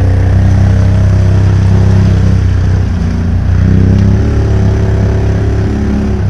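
ATV engine running steadily, its note shifting and rising slightly about four seconds in.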